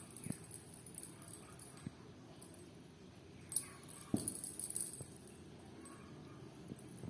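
Kittens playing: scattered light taps and knocks, with a short spell of high jingling about three and a half seconds in and a louder knock just after.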